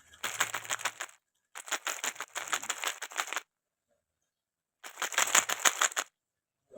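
Three bursts of rapid clicking rattle, each one to two seconds long, with short silences between them.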